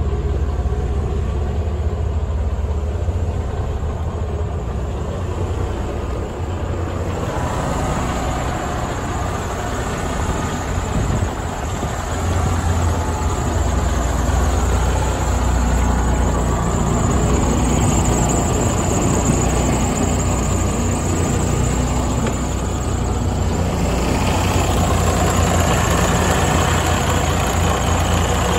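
Freightliner Cascadia's heavy-duty diesel engine idling steadily with a deep low rumble. It is muffled inside the cab at first, and after about seven seconds it turns clearer from outside the truck. Near the end it becomes brighter and more mechanical from the open engine compartment.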